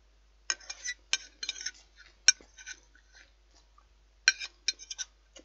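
Metal knife and fork clinking and scraping against a ceramic dinner plate, with a cluster of sharp ringing clinks starting about half a second in and another about four seconds in.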